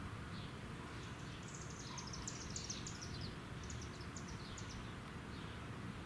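A small songbird singing two quick runs of short, high, downward-slurred notes, over a steady low rumble of wind and distant suburban noise.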